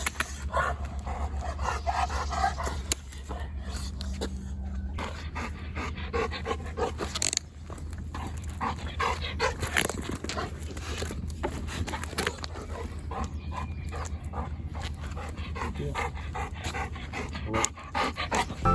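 A golden retriever panting, with scattered rustles and clicks, over a steady low rumble.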